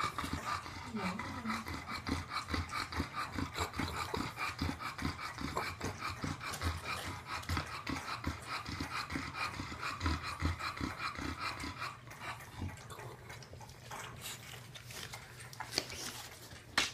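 French bulldog puppy breathing fast and noisily close to the microphone, about five quick snuffling breaths a second. It eases off about twelve seconds in.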